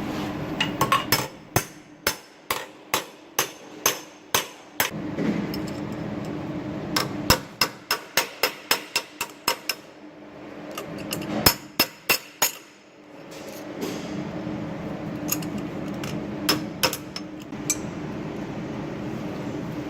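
Brass hammer striking a steel landing-gear fitting on a steel block to form it. The blows come at about two a second at first, then in a quicker run, then a few heavy strikes and some scattered taps near the end.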